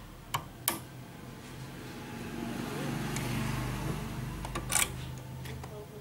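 Sharp clicks of a side cutter snipping the leg of a transistor on a CRT TV circuit board: two snaps within the first second and two more close together near the end, over a low steady hum.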